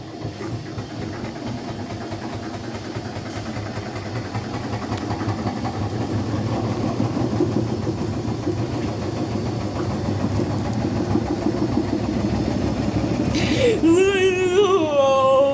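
Samsung washing machine running: a steady mechanical drum-and-motor rumble that grows gradually louder. Near the end a person's wavering voice sounds over it.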